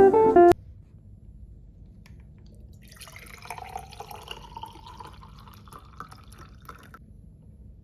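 Music cuts off about half a second in. From about three seconds, water runs or drips for a few seconds, then stops.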